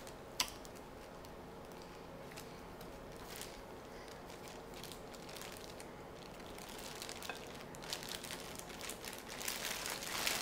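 Thin plastic bag crinkling as it is handled, sparse at first with one sharp click about half a second in, then growing busier over the last couple of seconds.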